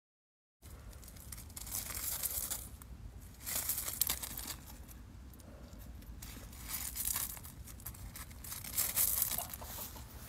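Feet crunching and scuffing on loose gravel in irregular bursts, over a low steady rumble. It starts suddenly after about half a second of silence.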